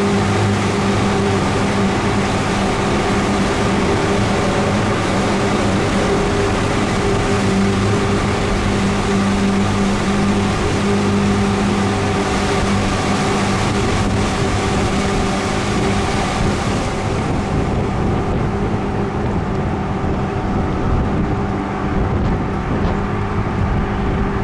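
Mercury 850, an 85 hp four-cylinder two-stroke outboard motor, running steadily at cruising speed, pushing the boat along. A high hiss over the motor dies away about two-thirds of the way through.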